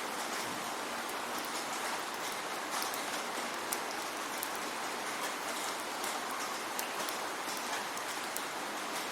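Steady rain falling, an even hiss with scattered sharper ticks of individual drops hitting a surface.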